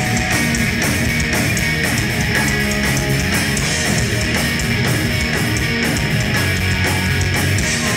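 Heavy metal band playing live, with distorted electric guitars, bass and drums at a steady, loud level, heard from the crowd through the room's sound system.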